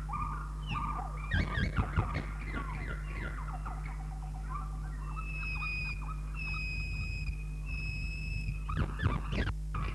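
Busy bird-like chirping and squawking calls, with three long, steady whistled notes one after another in the second half, over a constant low mains hum.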